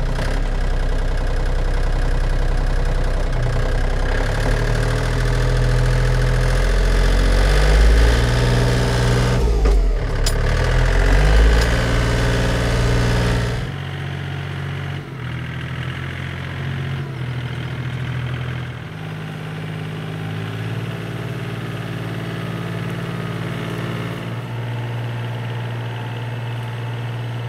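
Compact tractor's engine running close by, its pitch shifting up and down as it pulls out. About halfway through, the sound drops suddenly to a quieter, steady engine as the tractor moves off along a track.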